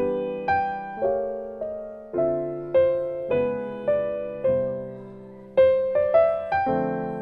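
Background piano music: single notes and chords struck about every half second, each fading as it rings.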